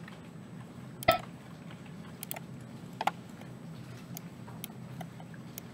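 Scattered clicks of a computer mouse, about half a dozen spread over a few seconds, the sharpest about a second in, over a faint steady low hum.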